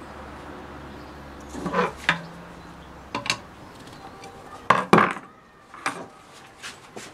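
Metal hand tools clinking and clattering against the transmission case and the workbench: a few separate sharp clinks, the loudest pair about five seconds in.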